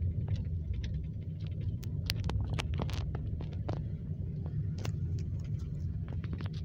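Steady low rumble of a car's engine and tyres heard from inside the cabin while driving, with scattered light clicks and ticks over it.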